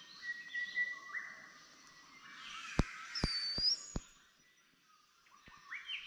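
Rainforest ambience: a chorus of calling creatures and a bird's swooping whistle twice. Four sharp clicks come in quick succession near the middle.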